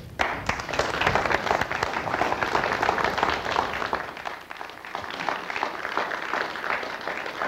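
Audience applauding, many hands clapping at once; it starts abruptly, is strongest for about four seconds, then thins out.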